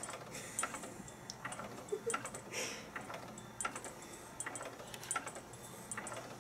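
Faint irregular clinking and jingling, a few light clicks a second, from small objects handled close to the microphone.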